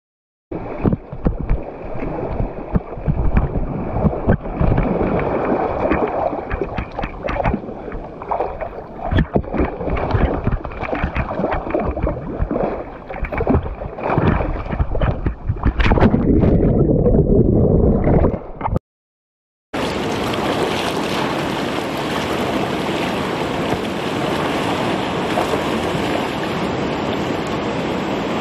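Whitewater rushing and splashing close around a playboat kayak, uneven and choppy, turning muffled for a couple of seconds. After a brief break about two-thirds of the way through, a steady, even rush of river water.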